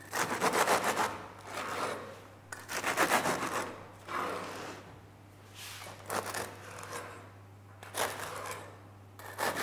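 Long bread knife sawing through the crisp crust of freshly baked focaccia on a wooden board, a rasping scrape with each stroke of the blade, coming in a series of strokes about a second apart.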